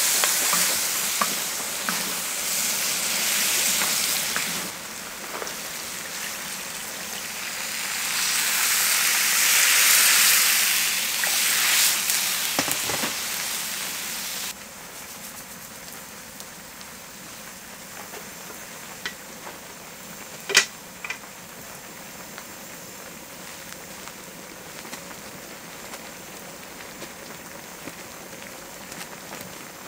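Food frying in hot oil, a loud sizzling hiss that swells and fades. About halfway through it cuts suddenly to a much quieter steady hiss with a few sharp clicks.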